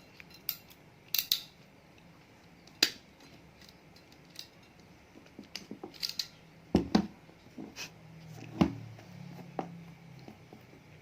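Scissors snipping the arranged wire ends of a UTP network cable to trim them even. There are several sharp snips and clicks at irregular intervals, mixed with small handling noises.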